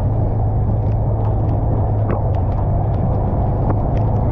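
Motor vehicle engine running at a steady pace while driving along a wet road, a constant low drone with a few small ticks over it.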